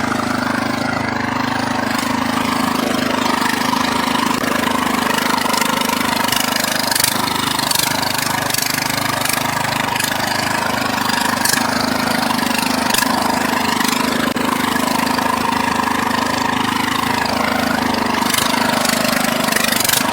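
Riding lawn mower's 18.5 HP Briggs & Stratton engine running at a steady, even speed, with a few faint ticks over it.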